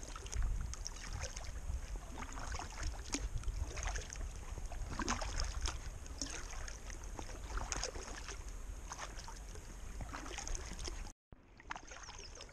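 Kayak paddle strokes in calm water, with splashes and drips from the blades about every one to two seconds over a low rumble of light wind on the microphone. The sound drops out completely for a moment near the end.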